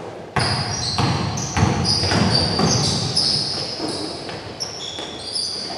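A basketball being dribbled on a gym floor, a series of sharp bounces about one or two a second, amid players' footfalls and shuffling in the hall.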